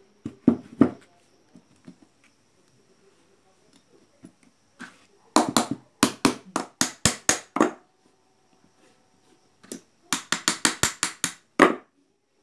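Rapid runs of sharp metal taps on the casing of a reassembled single-phase induction motor, about four a second: a few near the start, about nine in the middle and about eight near the end. The tapping seats the end cover so the binding rotor can turn freely.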